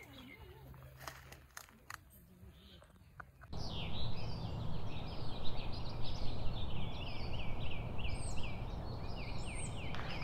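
Faint outdoor ambience with a few light clicks. Then, about three and a half seconds in, it jumps to a steady rushing noise with birds chirping over and over, several short calls a second.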